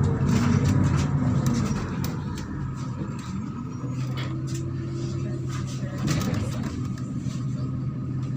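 MAZ-103 city bus diesel engine running loudly for the first couple of seconds, then easing off about two and a half seconds in to a steadier, quieter drone with scattered rattles.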